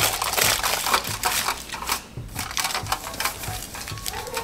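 Kitchen handling noise: a dense run of irregular scraping, crackling and small clicks from utensils and containers, louder in the first two seconds, then quieter.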